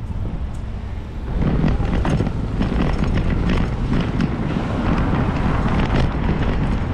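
Wind buffeting the microphone of a camera on a moving bicycle, over a low rumble of street traffic. The wind gets louder about a second in as the bike picks up speed, and stays steady after that.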